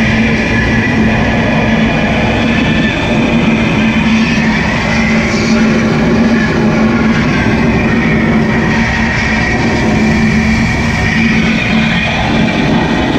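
Loud background music with a steady rock-like drive, over a dense steady roar.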